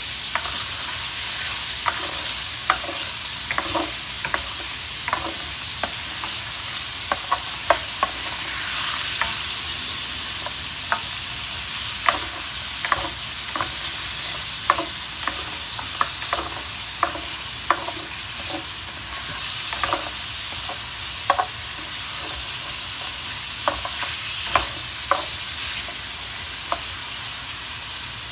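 Food sizzling steadily in a hot pan as it is stir-fried for pansit bihon. A utensil knocks and scrapes against the pan in short, irregular clicks.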